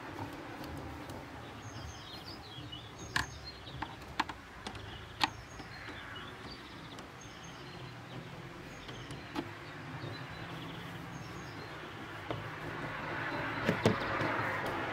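Small birds chirping repeatedly over a steady outdoor background hum, with a few sharp clicks and taps from parts being handled in a car's engine bay; a broad hiss swells near the end.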